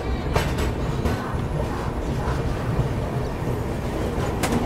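Express passenger train rolling slowly out of a station, heard from the open coach door: a steady low rumble of wheels on track, with a sharp click about half a second in and another near the end.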